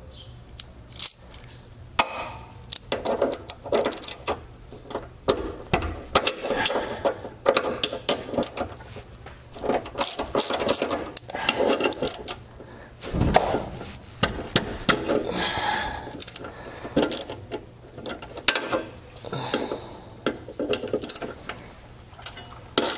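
A 3/8-inch ratchet with a 13 mm socket clicking in short runs as it breaks loose the bolts on the rear subframe plate. There are a few louder knocks of metal on metal.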